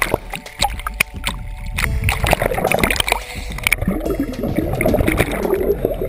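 Seawater churning and bubbling around an underwater camera just below the surface in heavy swell, with many sharp clicks through it.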